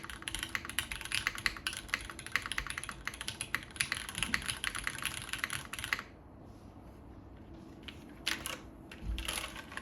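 Mechanical keyboard with Cherry MX Black linear switches on a full aluminium plate and GMK Taiga keycaps being typed on fast and continuously. The typing stops about six seconds in, and a couple of stray keystroke clicks follow near the end.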